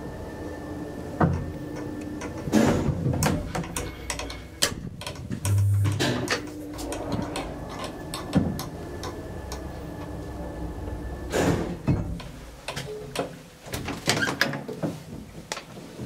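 Original TITAN passenger elevator running: a steady hum with a faint high whine that drops out and returns, broken by many clicks, knocks and clatters from the car and its doors.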